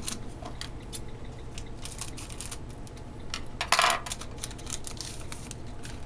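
Trading cards being handled by hand: a run of small clicks, taps and rustles as cards are shuffled, slid and set down, with one louder scrape about four seconds in.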